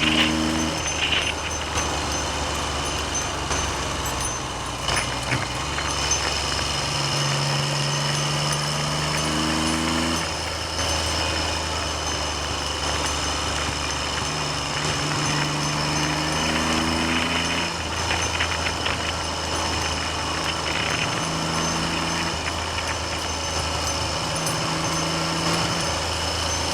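Triumph Trident's three-cylinder engine pulling along the road, its note rising and then dropping back several times as the rider changes gear, under steady wind noise on the microphone.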